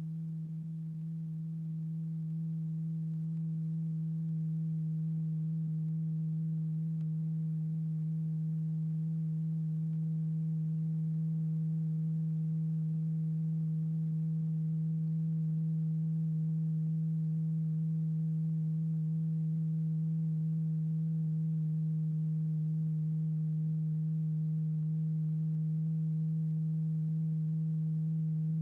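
A steady low pure tone with faint overtones, holding one pitch throughout and growing slightly louder over the first few seconds: the test tone that sets a stretched paper diaphragm strewn with lycopodium powder vibrating, in a cymatics experiment.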